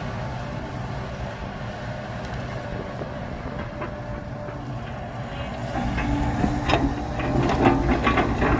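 Heavy diesel machinery running steadily at a soil-digging site. From about five and a half seconds in it grows louder, with a steady whine and a series of clanks and knocks.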